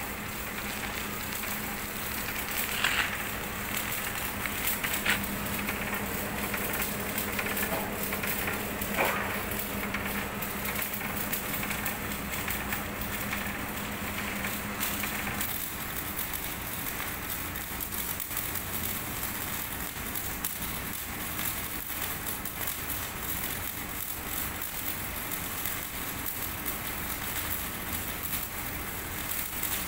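MIG welding arc crackling steadily as a bead is laid on steel plate, with a faint low hum that stops about halfway through.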